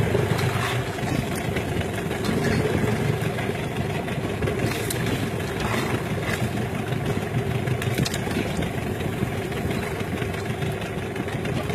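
Fishing boat's engine idling steadily, with water and wind noise around it.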